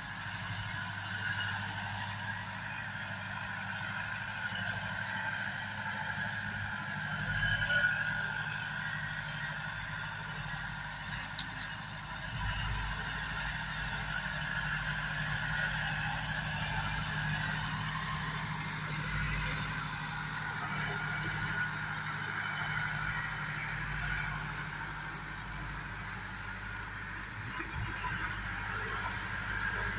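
SAME orchard tractor's diesel engine running steadily as the tractor tills manured soil with a rear-mounted tiller.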